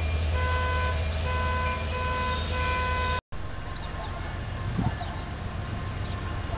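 Diesel locomotive air horn sounding in a series of short blasts over the engine's low rumble. About three seconds in, the sound cuts off abruptly and gives way to quieter, steady train running noise without the horn.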